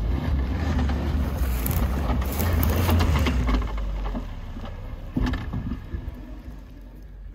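New Suzuki Jimny's engine working hard under load as it climbs a rough grassy track, a deep steady rumble with crackle from the tyres churning dirt. A single knock sounds about five seconds in, and the sound then fades as the vehicle pulls away.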